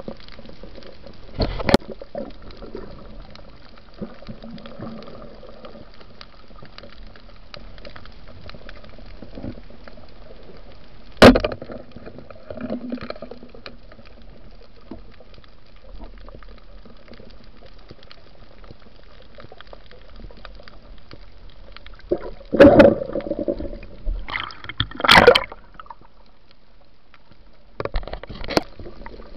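Water heard underwater through a camera housing during a night spearfishing dive: a steady muffled rush with a few sharp knocks, and louder bursts of water noise twice near the end.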